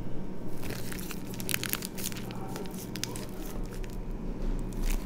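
Plastic piping bag crinkling and crackling as it is squeezed by hand to pipe doce de leite, in bursts of short crackles.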